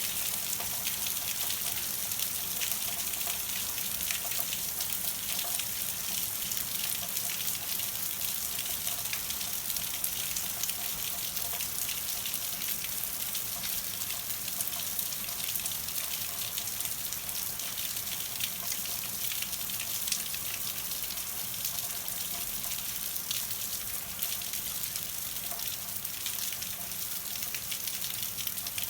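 Rain falling steadily in a storm: a dense, even hiss of drops with many fine ticks of individual drops striking.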